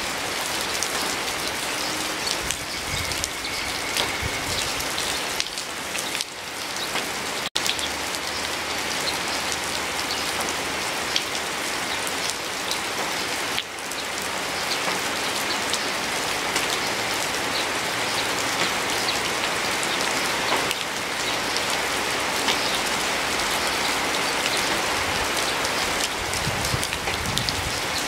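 Steady rain falling: an even hiss flecked with many small drop ticks. There is a momentary break in the sound about seven seconds in.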